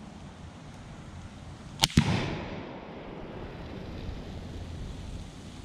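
A single shot from a Remington .308 rifle about two seconds in: a sharp double crack, then an echo fading away over about a second.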